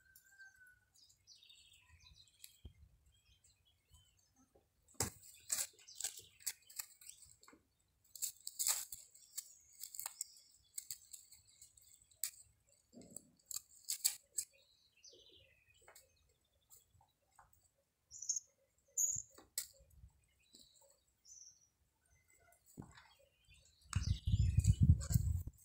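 Kittens scuffling and wrestling in dry grass and straw: scattered crackling rustles, with a few short bird chirps in the background and a loud low rumble near the end.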